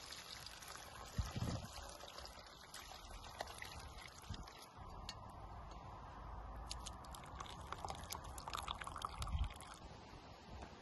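Chicken broth poured from a steel pot through a wire-mesh strainer into a glass bowl, then dripping from the strainer held over the bowl, with a run of light clicks in the second half.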